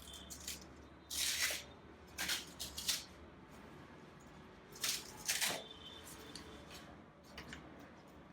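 Protective wrapping being peeled off a new iMac and handled, in several short rustling bursts: about a second in, twice more between two and three seconds, and again around five seconds.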